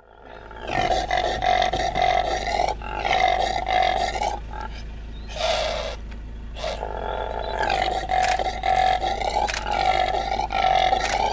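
Male impala giving loud, harsh roaring grunts, one after another in a long series, with a short break about halfway. These are the rasping roars that impala rams make during the rut.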